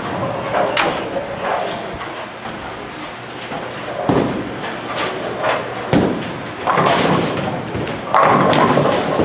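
Bowling alley noise: bowling balls and pins knocking and crashing on the lanes several times, each crash ringing on in the large hall.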